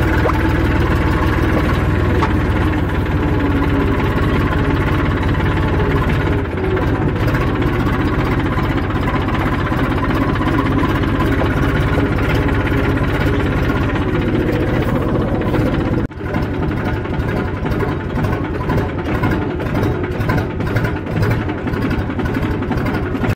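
Tractor's diesel engine running steadily under way. About two-thirds through the sound drops out for a moment, then runs on more unevenly.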